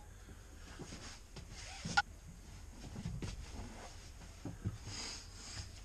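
Scattered handling sounds as a person moves about and settles at a table: light rustles and small knocks, with one sharp clink about two seconds in.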